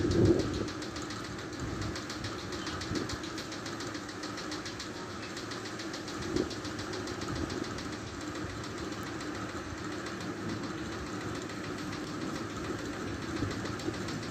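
A steady, low, engine-like droning hum with a fine, even pulse running through it, the sound the uploader calls a terrible sound in the sky.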